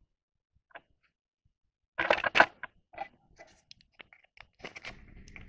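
Hands working at the dust collector's electric motor wiring box: a few sharp clicks and rattles about two seconds in, then scattered light ticks, and a low rumble near the end.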